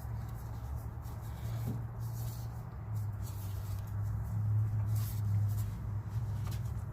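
Faint scraping and light clicks of a steel sway bar bushing bracket being worked into place by hand over a steady low hum.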